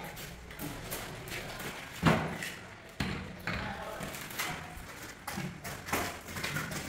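Knocks, clicks and scraping as a large porcelain slab tile is gripped with hand suction-cup lifters and lifted: a sharp knock about two seconds in and another about a second later.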